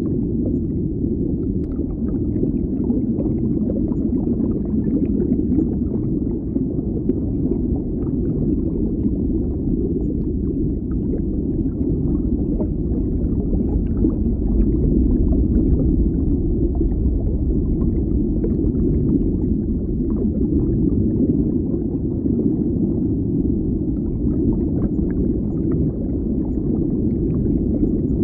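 Water bubbling heard as from underwater: a continuous deep, muffled rumble of bubbles, with faint scattered pops and ticks above it.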